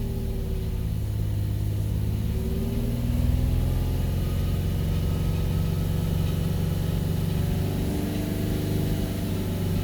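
Nissan 350Z's 3.5-litre V6 running steadily at operating temperature while air is bled from its cooling system through a funnel on the filler.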